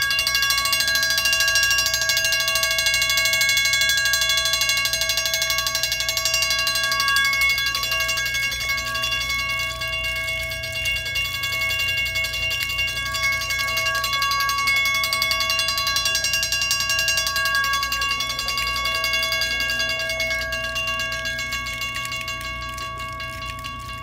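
Fire sprinkler alarm bell ringing continuously with rapid, rattling strikes, set off during a sprinkler alarm test. It dies away over the last few seconds.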